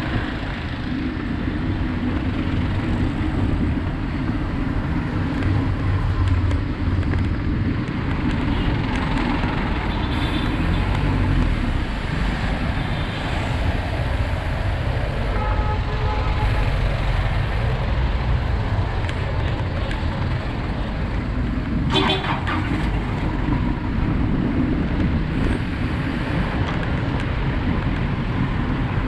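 Steady street traffic noise from congested cars, vans and jeepneys, with a constant low engine rumble. A brief vehicle horn toot sounds about two-thirds of the way through.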